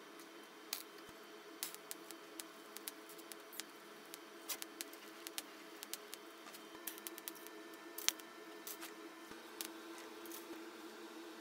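Irregular sharp metallic clicks and taps from steel flat-bar pieces being handled and tack-welded on a steel welding table, some clicks coming in quick little clusters, over a steady low hum.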